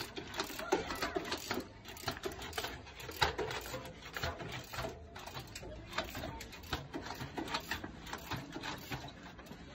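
Mountain bike hopping up stone steps on its back wheel: irregular knocks and rattles as the wheel lands on each step, mixed with the ticking of the rear hub's freewheel.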